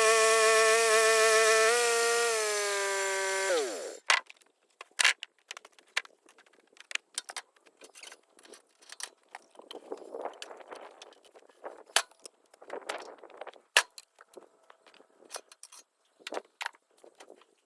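A bandsaw mill running with a steady high whine, which drops in pitch and dies away about four seconds in as the mill is shut down. After that come scattered clicks, knocks and scrapes.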